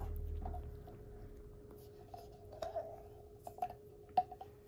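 Small handling noises of kitten feeding: a brief low rumble at the start, then scattered soft clicks and rustles, the sharpest about four seconds in, over a faint steady hum.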